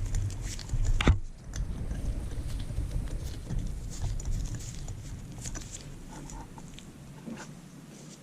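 A hand tap being backed out of freshly retapped threads: small metal clicks and handling rumble, with one sharp click about a second in, fading quieter toward the end.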